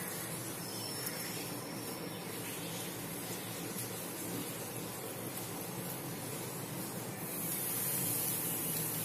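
Thin besan-curry gravy boiling in a kadhai over a medium gas flame: a steady hiss, a little louder from about seven seconds in.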